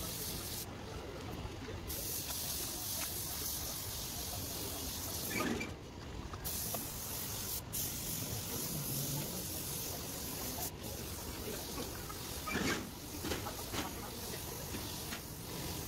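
Compressed-air paint spray gun hissing steadily, cutting out briefly a few times.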